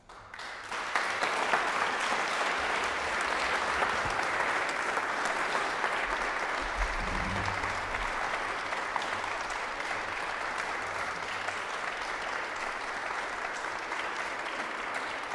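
Audience applauding. The clapping breaks in suddenly out of silence, builds within about a second, and then holds steady.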